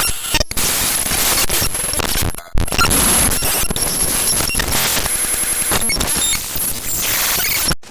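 Loud, dense noisy editing sound effect with short breaks about half a second and two and a half seconds in, then running on unbroken for about five seconds before cutting off near the end.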